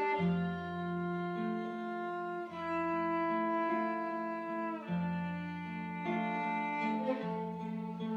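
Viola playing a slow melody of long held bowed notes, with a kora accompanying underneath.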